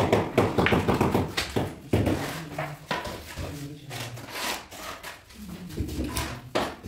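Steel hand trowel scraping and tapping on a bed of tile adhesive spread over the floor, in short irregular strokes, with men's voices now and then.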